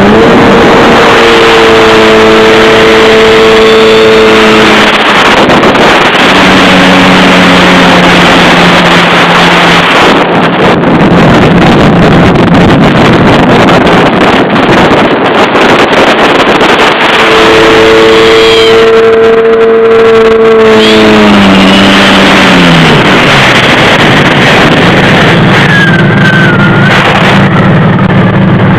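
Jet ski engine running under throttle, with a heavy rush of wind and water over it. Twice the engine note climbs and holds before dropping back, and near the end it settles to a low, steady hum.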